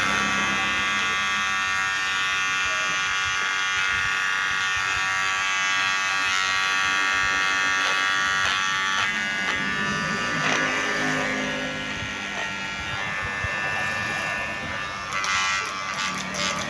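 KIKI cordless hair clipper running, its motor giving a steady buzzing hum.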